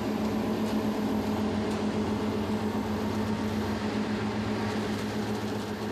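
Grape harvester's engine running steadily as the machine drives along the vine rows, a constant even hum.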